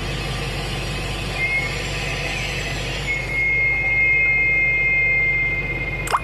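Electronic 'intercooler' horn module sounding through a 300-watt loudspeaker: a loud hiss with a steady high whistle that comes in briefly about a second in and holds from about three seconds on. A sharp click near the end.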